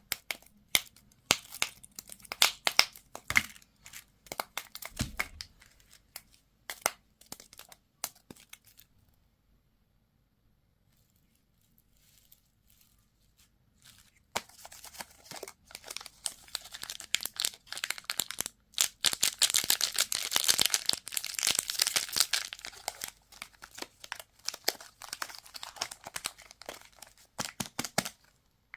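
Candy or toy packaging being crinkled and torn open: scattered sharp crackles, a pause of several seconds, then a long stretch of dense crinkling and tearing.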